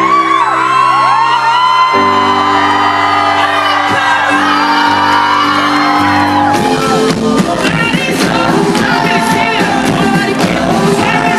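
Live pop band music: layered voices singing over held keyboard chords, then drums come in with a steady beat about six and a half seconds in.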